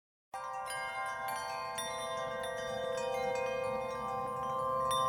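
Ringing chime tones over a held low note, with new notes sounding every half second or so, starting a moment in and growing slowly louder.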